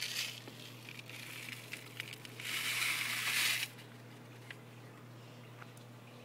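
Light handling clicks, then a rustling, crinkling noise for about a second midway through, over a steady low hum.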